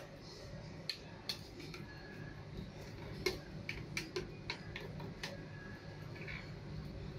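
Hard plastic blender jar clicking and knocking as it is lifted off its base and tipped to pour a slushie: about a dozen sharp, irregular taps over a few seconds, over a low steady hum.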